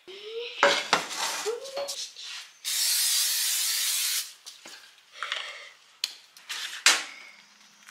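Aerosol cooking spray hissing into a frying pan in one steady burst of about a second and a half, starting a little over two and a half seconds in. A few light clicks and knocks of the can being handled come before and after it.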